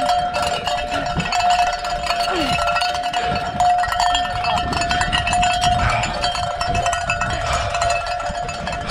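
A cowbell shaken fast and without a break, its clanks running together into one steady ringing tone.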